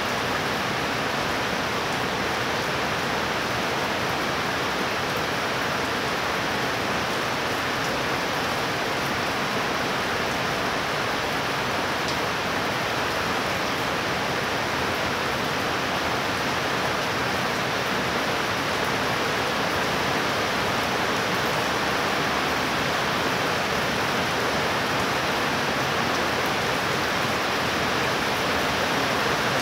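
Heavy rain falling steadily, a dense even hiss with no break.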